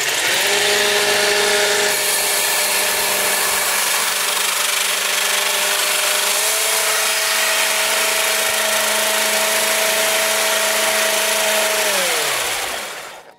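Traxxas X-Maxx RC truck's electric motor and drivetrain whining steadily at high speed as its thin metal disc wheels spin against the ice, with a loud hissing scrape from the discs on the ice. The whine steps up a little about six seconds in and winds down near the end as the wheels slow.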